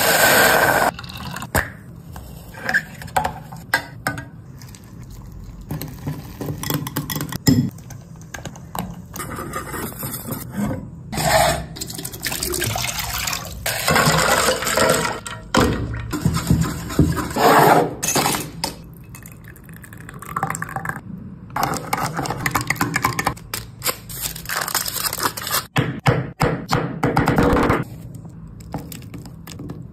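A string of close-up kitchen sounds: milk pouring from a carton into a steel saucepan, ice tipped from a glass bowl into a pan, and chocolate being chopped into shards on a wooden board.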